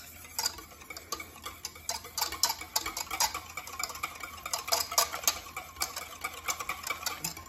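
Wire whisk clicking rapidly and irregularly against the sides of a stainless steel pot, several clicks a second, as egg yolks and oil are whisked by hand into mayonnaise.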